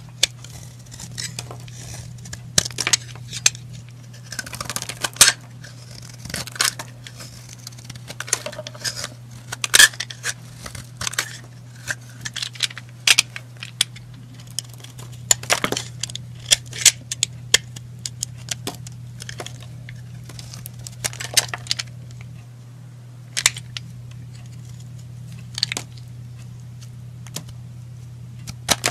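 Utility-knife blade carving slices off a bar of soap: irregular runs of crisp crunching and cracking as each slice splits and breaks away, some strokes coming in quick clusters and others alone. A steady low hum runs beneath.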